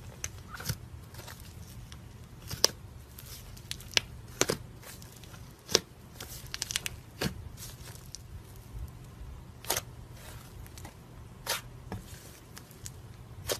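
Thick slime being dug into, pulled and folded by hand, giving irregular sharp pops and crackles as trapped air pockets burst, some in quick crackly clusters.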